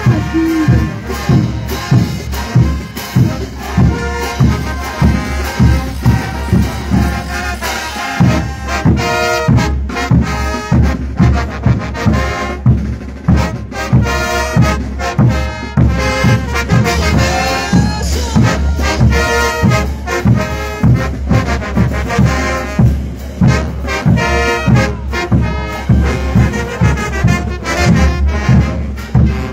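Bolivian brass band playing a morenada live: trumpets and trombones carry the tune over a steady, heavy bass-drum beat.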